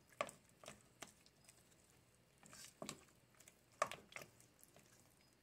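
Silicone spatula stirring a thick flour-and-milk paste in a stainless steel pan: faint, irregular scrapes and wet squishes, with a slightly sharper knock just after the start and another a little before the end.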